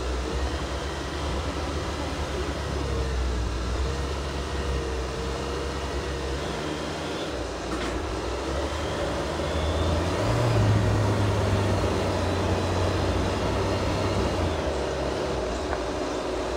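Jeep Wrangler JL engine running at low speed over an off-road trail, a steady low drone. It gets louder about ten seconds in and eases back a few seconds later.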